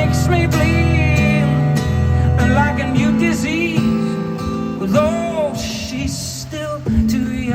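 Live concert music: an acoustic guitar playing with a voice singing long, sliding melodic lines over it.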